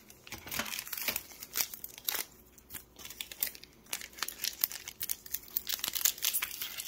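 Foil wrappers of Pokémon card booster packs crinkling and tearing as they are handled and ripped open by hand, an irregular run of crackles.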